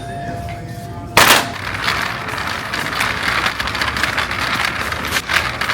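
A loud sharp knock about a second in, followed by a few seconds of rustling, clattering handling noise with small clicks.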